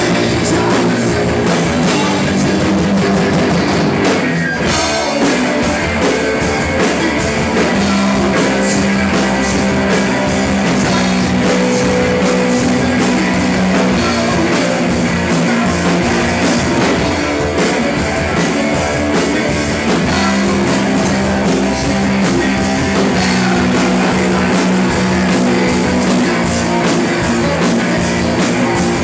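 Live rock band playing a song at full volume: electric guitars strumming held chords over a driving drum kit.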